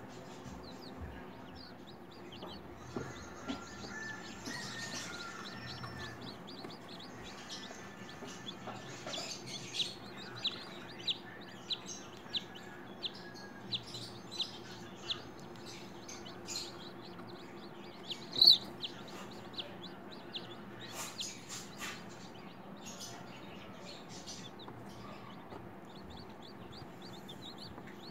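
Chicken chick peeping repeatedly from a pipped egg during hatching: short, high cheeps, with one louder peep a little past the middle, over a faint steady low hum.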